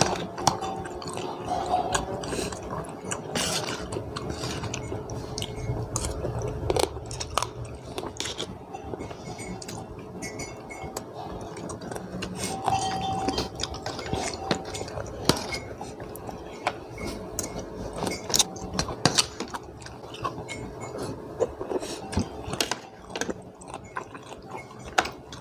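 Close-up eating sounds: chewing and biting through spicy papaya salad with fresh blue swimmer crab. Many irregular sharp clicks and clinks of utensils on a plate run through it.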